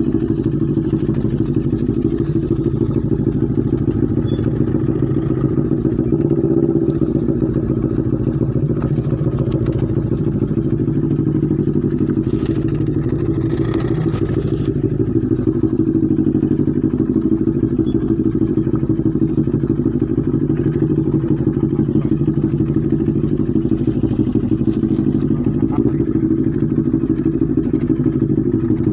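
Motorcycle engines running steadily at low revs in a low gear, a continuous pulsing chug, as the bikes crawl over a rough dirt trail.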